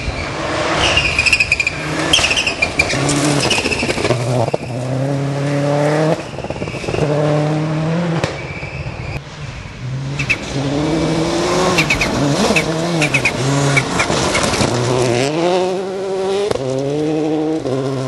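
Rally car engines at full throttle on a gravel stage, climbing in pitch through each gear and dropping back at every shift, over a steady hiss of tyres and spraying gravel, with sharp cracks scattered through.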